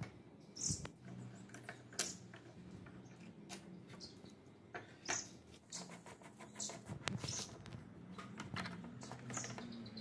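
Hand screwdriver turning Phillips screws into the aluminium tread-plate jaw face of a bench vise: faint short high squeaks every second or two as the screws turn, among sharp clicks and knocks of the metal parts being handled.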